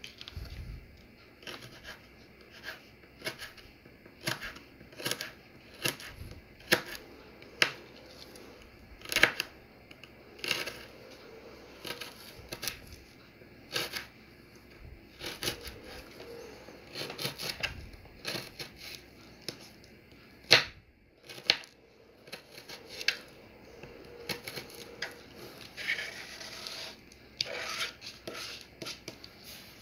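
Serrated kitchen knife slicing a green chili pepper on a plastic cutting board: crisp cuts, each ending in a tap on the board, come irregularly, one to two a second. Near the end the blade scrapes across the board as the slices are scooped up.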